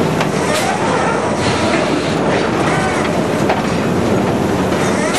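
Sawmill stepped log feeder running: a steady, dense mechanical rumble with scattered knocks as logs roll and bump over the steel steps.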